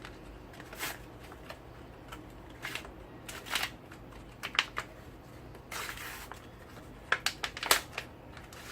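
Packaging of a felt pad being handled and opened: irregular rustling and crinkling with a few sharp clicks, busiest near the end.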